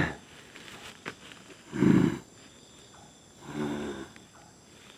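Wordless vocal sounds from a medium voicing a spirit in trance: a loud, low sound about two seconds in, then a shorter, quieter pitched one near four seconds.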